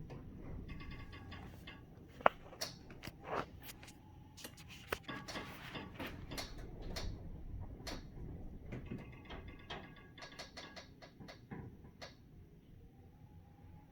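High-rise building creaking at night: irregular creaks, ticks and cracks, with clusters of rapid creaky ticking and one sharp crack about two seconds in.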